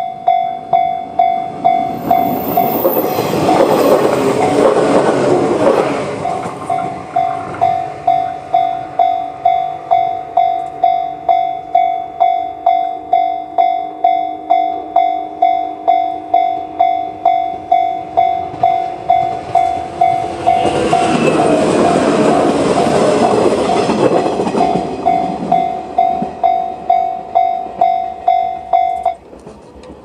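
Electronic level-crossing bell in the JR standard tone ringing about one and a half times a second. Two Shinano Railway 115-series electric trains pass over the crossing, one about two seconds in and another about twenty seconds in, each for about four seconds. The bell stops about a second before the end as the crossing clears.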